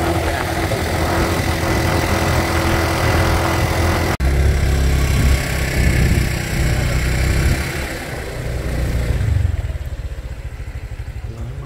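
Vehicle engine running steadily while riding, with a brief break in the sound about four seconds in. The engine noise drops off near the end.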